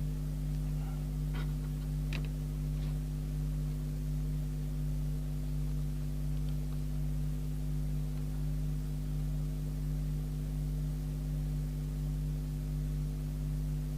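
Steady low background hum made of several constant pitched lines, with a few faint clicks in the first three seconds.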